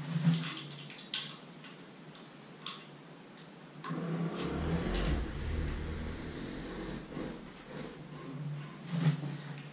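Light clicks and taps of small hardware as hands adjust the roller-wheel nuts on a Creality CR-10 3D printer's bed carriage. From about four seconds in comes a low rumble lasting a few seconds as the carriage is handled.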